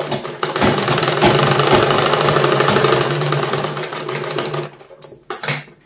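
An old black straight-stitch sewing machine runs fast and steadily, stitching the folded hem of a sleeve with a dense rapid clatter over a low hum. It slows and stops a little before the end, followed by two short scraping sounds.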